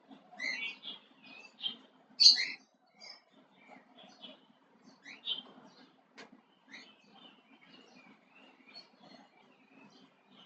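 Small birds chirping in short, scattered high calls, loudest about two seconds in. A single sharp click comes about six seconds in, over a low steady hum.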